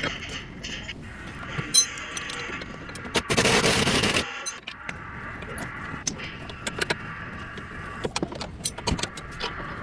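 Metal tools working on a car's suspension: irregular metallic clinks and knocks, with a loud one-second burst of noise about three seconds in.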